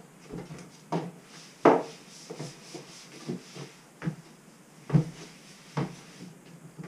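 Kitchen objects being handled: a series of about seven short knocks and clunks at irregular intervals, the loudest about two seconds in.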